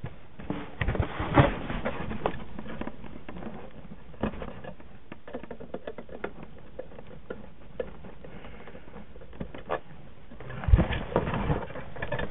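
Scattered clicks, taps and scraping of a screwdriver and screws being worked into a cardboard shoebox, with cardboard rustling, busier and louder near the end. The screws will not take hold in the cardboard.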